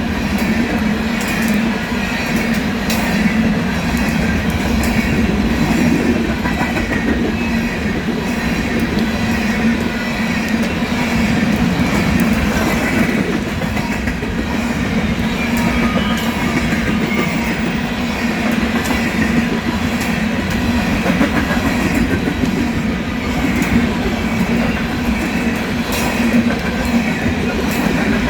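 Coal train cars rolling past: a steady rumble of steel wheels on rail, with scattered crackling pops throughout. The uploader likens the popping to something sticky, like an adhesive, on the rails.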